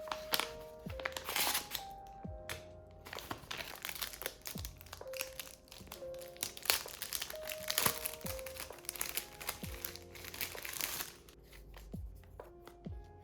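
Plastic packaging crinkling and rustling in repeated bursts as photocards are unwrapped, over soft background music with sustained notes. The rustling eases off near the end.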